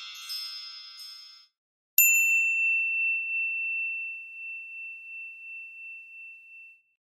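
The tail of a chiming intro jingle fading out, then a single high bell-like ding about two seconds in that rings on for nearly five seconds, slowly dying away with a slight waver.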